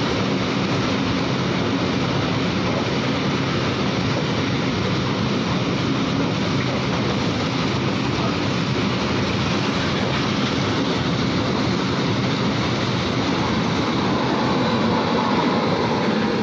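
Open-top freight wagons of a very long freight train rolling steadily past at close range, a continuous rumble and clatter of wheels on rail. It grows slightly louder near the end as one of the train's locomotives comes by.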